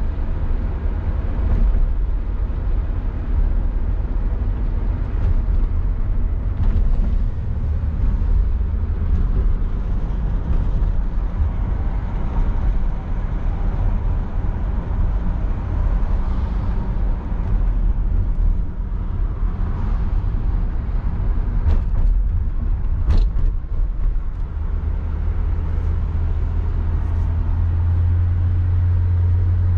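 A 1966 Ford Galaxie 500's 352 V8 running along with tyre and road noise, heard from inside the car while cruising. There is a low steady drone that grows stronger near the end, and a couple of brief clicks a little over twenty seconds in.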